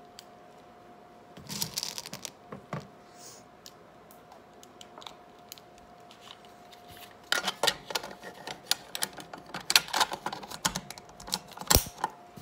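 An airsoft sniper rifle's magazine being handled and loaded by hand with BBs, making small plastic clicks and rattles. There is a short burst of them early on, then a busier run from about halfway in, with a sharper knock near the end as the magazine goes in. A faint steady hum runs underneath.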